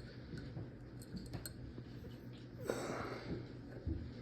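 Faint scattered clicks of small metal ratchet parts being handled while the reverse switch is fitted into the ratchet head, with a soft breath about two-thirds through and a dull bump near the end.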